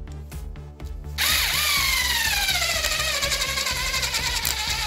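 Kitchen Flower 3.6 V cordless screwdriver starting about a second in and driving a screw into a wood block. Its motor whine sinks steadily in pitch as the screw goes in and the motor slows under the load. The driver is short of torque, which the owner puts down to a plastic gear inside not taking the strain.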